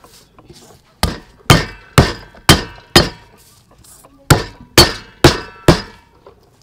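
Garlic cloves being smashed with the flat of a cleaver on a wooden chopping block: sharp whacks with a short metallic ring, about two a second. Five whacks, a pause of a second, then four more.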